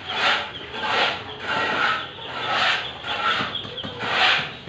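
Repeated hand-tool scraping strokes, roughly one every two-thirds of a second to a second, from building work going on.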